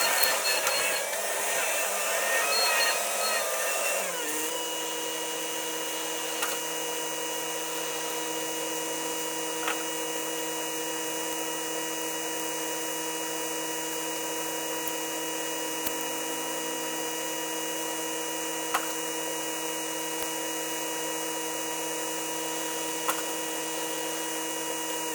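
Diesel engine of a Takeuchi machine running at working revs. About four seconds in the revs drop and it settles to a steady idle, with a few faint clicks.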